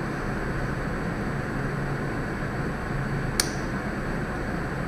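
One short, sharp click about three and a half seconds in: the Canon EOS 200D's power switch being flipped to on. It sits over a steady room hiss and low hum.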